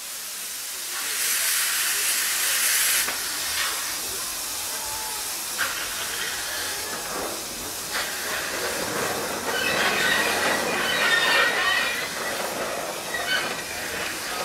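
Narrow-gauge steam locomotive moving off, hissing steam throughout, with a loud burst of hiss about a second in that lasts some two seconds. A few sharp knocks come from the engine as it rolls away.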